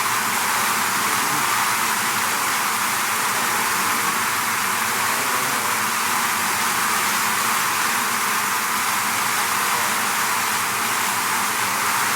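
Honeybee swarm buzzing as a dense, steady hiss-like drone, with no single bee's pitch standing out.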